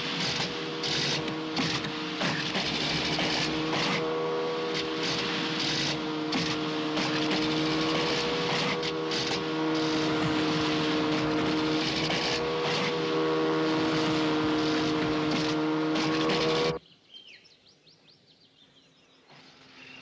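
Speedboat outboard motors running flat out in a steady high drone, with the hulls slapping and spray hissing over the water. About three-quarters of the way through the sound cuts off abruptly to a quiet outdoor lull with faint chirps.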